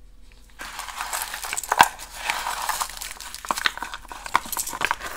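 Small plastic zip bags and tissue paper crinkling and rustling as bead packets and strands of glass beads are handled and lifted out of a box, with scattered clicks of beads knocking together.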